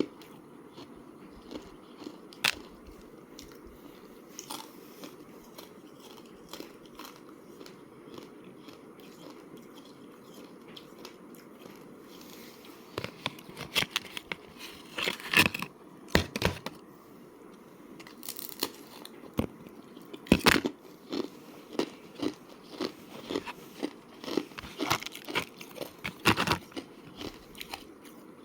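A person biting and chewing thin slab ice close to the microphone, with sharp cracks and crunches. For about the first twelve seconds there are only a few isolated clicks; after that comes dense crunchy chewing with several loud bites.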